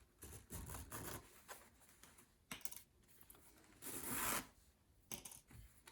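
Sewing thread being pulled through denim by hand, drawing the hand stitches of the hem tight, with the jeans fabric rustling as it is handled: a few faint rubbing strokes, the longest about four seconds in.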